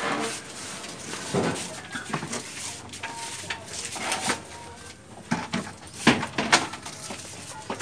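Irregular knocks and clatter of flight-case gear being handled: the road-case lid and the mixing desk's case being moved and set down, with a couple of louder knocks a little after six seconds.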